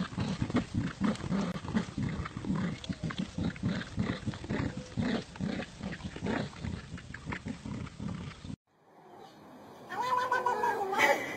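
Dogs growling in rapid, pulsing bursts while tugging on a rope toy. After a short break, a cat gives one long, drawn-out meow near the end.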